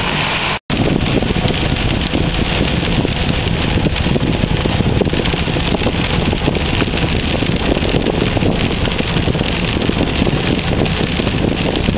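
Steady road and engine noise inside a moving car, with a brief drop to silence about half a second in where two recordings are joined.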